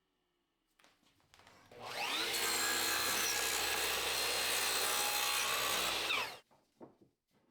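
An electric power tool starts up, running for about four seconds with a steady high whine and noise as it works wood, then winds down quickly. There are a few light knocks before it starts and after it stops.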